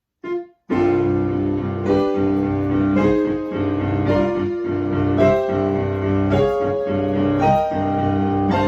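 Digital keyboard with a layered piano-and-synth sound playing a climbing run of major chords in the right hand over a held bass note on the fifth of F in the left hand, a new chord struck about every second.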